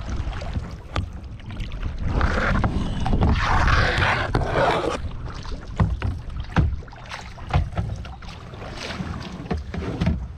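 Kayak paddling: paddle blades splashing and swishing through the water, with a longer wash between about two and five seconds in, then scattered sharp knocks and drips. Wind rumbles on the microphone throughout.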